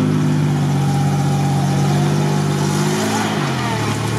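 Toyota 4Runner's engine revving under load as it works in mud and water, held at a steady higher pitch for about three seconds, then easing back toward idle near the end.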